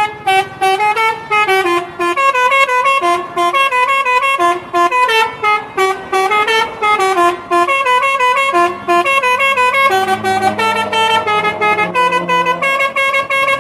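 Lorry's musical air horn playing a fast tune: a rapid run of short notes stepping up and down in pitch, several a second, without a break.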